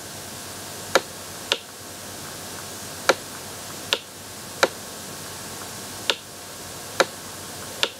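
Stylus tapping and clicking on a tablet screen while handwriting: eight short, sharp ticks at irregular intervals over a steady faint hiss.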